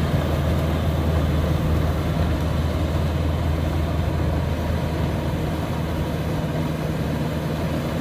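Kubota combine harvester's diesel engine running steadily while it cuts flattened rice, a low steady hum that eases off slightly as the machine moves away.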